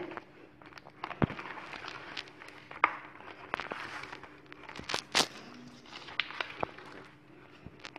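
Wooden spoon stirring a thick cornmeal batter in a bowl by hand: irregular scraping and squishing, with sharp knocks and clicks of the spoon against the bowl several times.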